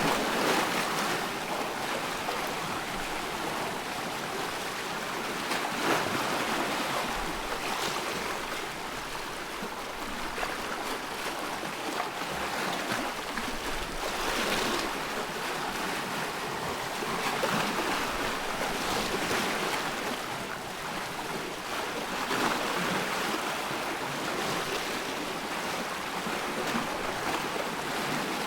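Choppy loch water: small waves washing in, with a swell every few seconds, over a steady rush of wind.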